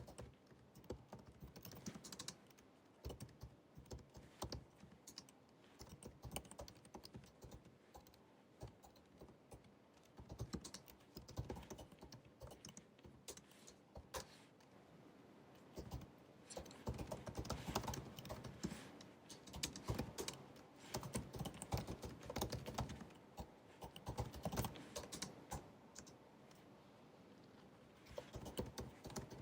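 Typing on the built-in scissor-switch keyboard of a 16-inch MacBook Pro (2019): quick soft key clicks in bursts, busier about halfway through, with a short lull near the end.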